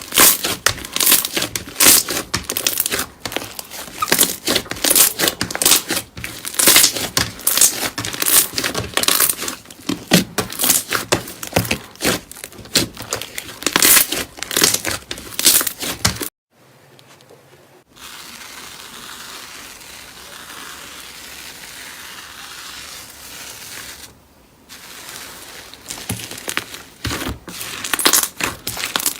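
Slime being squeezed and worked by hand, a dense run of sticky crackling and popping. It cuts off about sixteen seconds in and gives way to a steady soft hiss for several seconds, and the crackling returns near the end.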